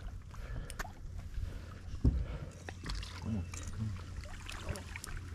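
Low wind rumble on the microphone over light water sloshing around a small boat, with scattered small knocks and one sharper thump about two seconds in.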